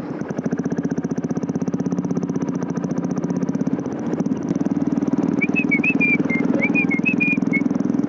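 Royal Enfield Thunderbird 350X single-cylinder engine running under way with a steady, even beat. A string of short, high chirps comes in over it about two-thirds of the way through.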